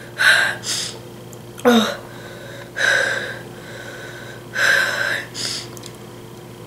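A boy breathing hard through his mouth: about six short, hissing breaths in and out, one with a brief voiced catch about two seconds in, his mouth burning from ghost pepper hot sauce.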